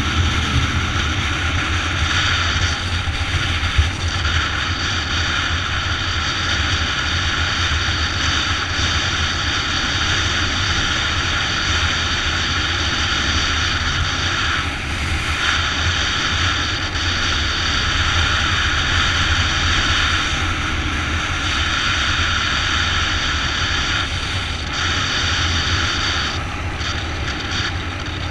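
Motorbike running at a steady cruising speed, with wind buffeting the microphone as it rides.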